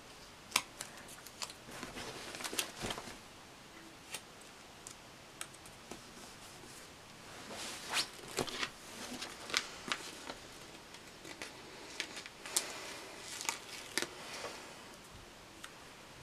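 Quiet paper handling: a sticker being peeled off and pressed onto a spiral planner's page, with scattered sharp ticks and short rustles as the planner is lifted and moved, in three clusters of activity.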